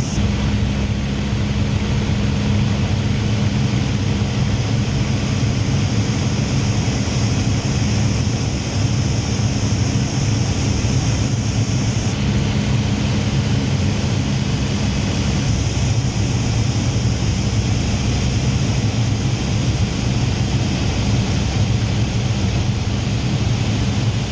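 Hawker Hurricane Mk I's Rolls-Royce Merlin V12 engine running steadily in flight, heard from the cockpit with a heavy, even rush of air.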